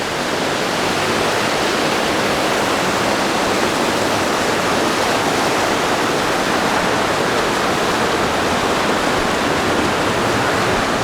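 Fast mountain water rushing, loud and steady, a continuous roar of white water with no break.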